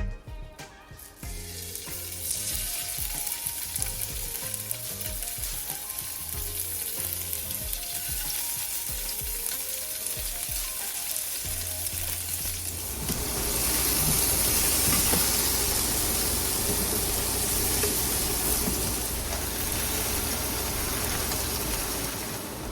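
Stir-fry sizzling and frying in a hot pan, a steady hiss that grows louder about halfway through, over a low steady hum.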